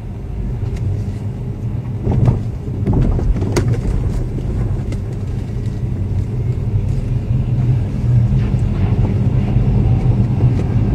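Low road rumble inside a Tesla with air suspension driven slowly over bumps and manhole covers, with a few sharp knocks, the clearest about two and three and a half seconds in. The knocking is the rattle of the front shock absorbers in the strut towers carried into the cabin, here partly damped by cloths laid under the strut-tower braces.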